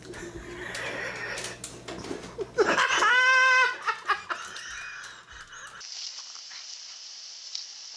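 A plastic jar knocking and scraping on a tile floor as a pug moves about with its head stuck inside it. About two and a half seconds in comes a high, steady, bleat-like cry lasting about a second, the loudest sound. Near the end there is a faint hiss.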